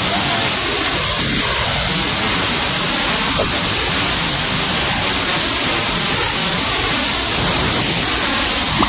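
Steady loud hiss of a C-17 Globemaster III's turbofan engines and slipstream, heard inside the cargo hold with the paratroop door open.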